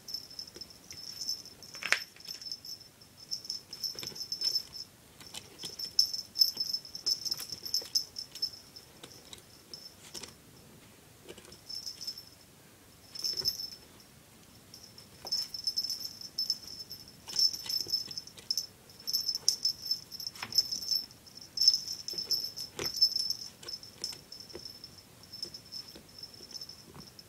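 Chihuahua puppy jumping and tugging at a rope toy: a small bell on her collar jingles in irregular bursts, with light clicks of claws on a tile floor.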